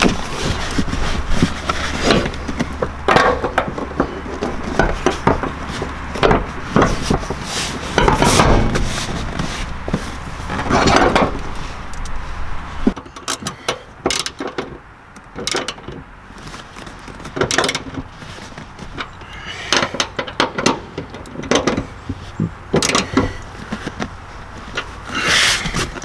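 A 5th-generation Toyota 4Runner's middle-row seat being fitted back in: a run of irregular clunks, knocks, rubbing and squeaks from the seat frame, its anchor pins latching into the floor and its hardware being handled. A low steady hum underneath stops about halfway through.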